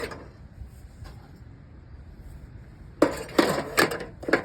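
A quick run of sharp metal clanks and rattles, about five in a second and a half, from the Origo 3000 alcohol stove being handled. They start about three seconds in, after a quiet stretch.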